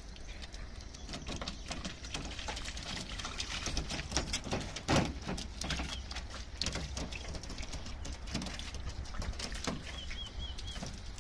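Bulldog puppy's paws pattering and splashing on the wet, ribbed bed liner of a pickup truck: a quick run of irregular light clicks and small splashes, busiest around the middle. A bird chirps briefly near the end.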